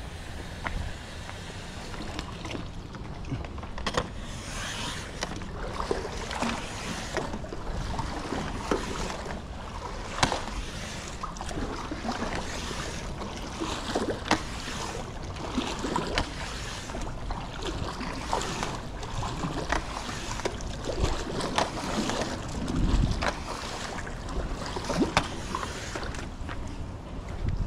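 Pool water sloshing and splashing as a cleaning tool on a long pole is worked through it, with many sharp clicks and knocks scattered irregularly throughout.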